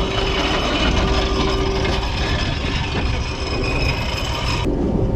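Boat's engine rumbling under a steady hiss of wind and water, the hiss dropping away sharply near the end.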